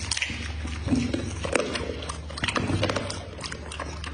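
A dog chewing food with its mouth open, wet smacking and lip-licking clicks coming quickly and irregularly.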